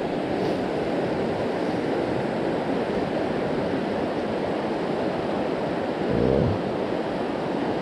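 Fast, high river water rushing steadily. A brief low swell comes about six seconds in.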